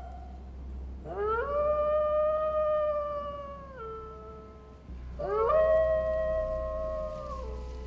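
Wolf howling twice. About a second in, a long howl slides up, holds steady and drops near four seconds. A second long howl starts about five seconds in and falls away near the end.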